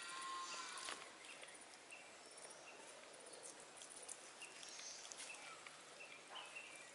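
Quiet outdoor background with a few faint, short, high bird chirps.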